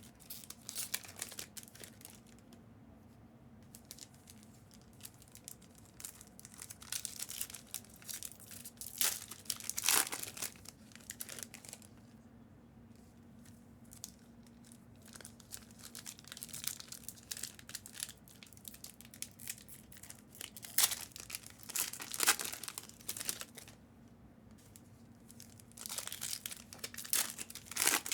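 Plastic wrapping on trading-card packaging being torn open and crumpled in irregular short crackly bursts, over a faint steady hum.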